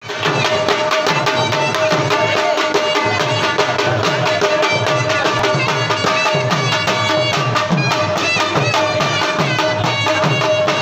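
Pashto attan dance music: a fast, steady dhol drum beat under a melody line over a held drone note.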